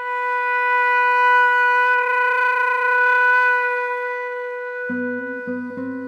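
Concert flute holding one long note that swells, wavers with vibrato in the middle and then fades. Near the end a classical guitar comes in with plucked notes.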